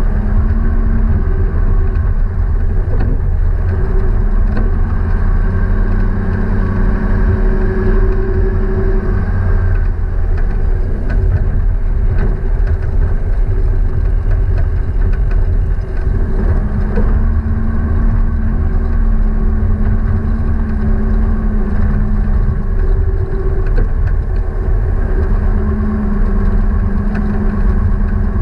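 A vehicle running steadily under a continuous low rumble, with a hum that swells and fades a few times.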